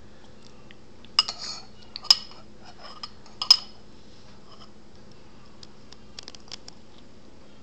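A spoon clinking and scraping against a dish as a toddler feeds herself: three sharp, ringing clinks in the first few seconds, then a few faint taps.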